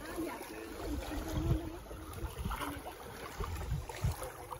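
Wind buffeting the microphone and water splashing around a boat moving over open water, in uneven gusts with scattered low thumps. Faint voices in the background during the first second or so.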